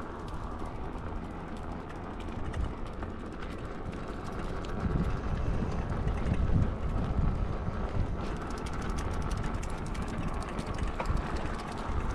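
Wind buffeting the microphone while cycling, over a steady rush of tyre and road noise that grows louder and rougher about halfway through.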